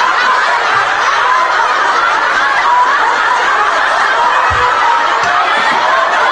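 A large group of women laughing together at once, many voices overlapping in steady, continuous laughter. It is laughter yoga: laughter started on purpose as a group exercise.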